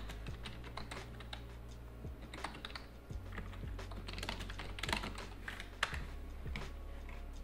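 Typing on a computer keyboard: a run of irregular key clicks as a short sentence is typed, over a low steady hum.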